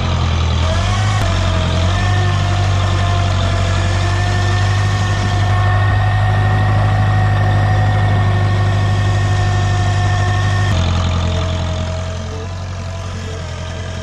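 Farmall Super A tractor's four-cylinder gasoline engine running steadily while the tractor carries a hay bale on its front loader. The engine note steps down a little about eleven seconds in.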